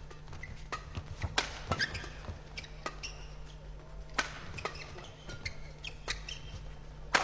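Rackets striking a shuttlecock back and forth in a fast badminton doubles rally: about a dozen sharp hits, irregularly spaced, each with a short echo of the hall.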